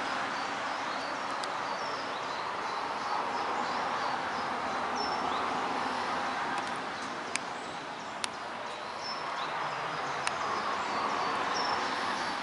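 Outdoor ambience: a steady rushing background noise with small birds chirping repeatedly, and a few sharp clicks in the second half.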